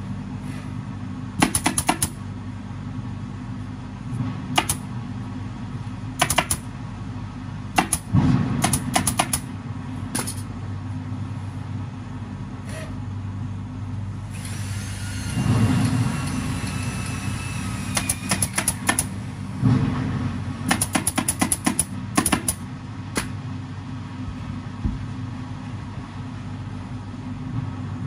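Pneumatic upholstery staple gun firing in quick bursts of sharp shots with pauses between, tacking fabric onto a seat frame, over a steady low machine hum. A stretch of hissing comes midway.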